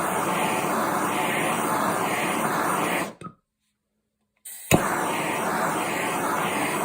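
Gas blowtorch lit with a sharp click, its flame hissing steadily for about three seconds, then cut off; about a second and a half later it is clicked alight again and burns on. The torch is heating the screwdriver's steel tip to temper it to a straw colour.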